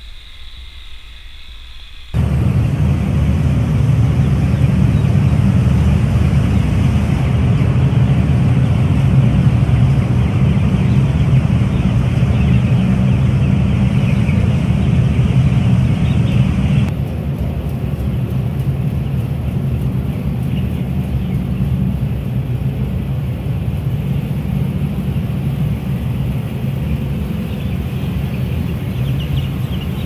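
Steady mechanical rumble inside a broiler chicken house, from its ventilation fans and gas space heaters. It comes in suddenly about two seconds in and becomes somewhat quieter about two-thirds of the way through.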